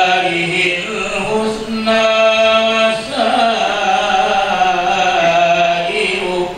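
Marhaban: Arabic devotional verses chanted melodically by a male voice, with long held notes and brief breaths between phrases.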